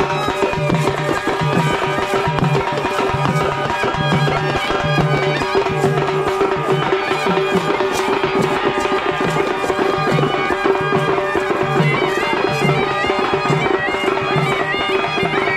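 Traditional Indian folk music. A reed wind instrument plays a melody over a steady drone, with a regular drum beat underneath.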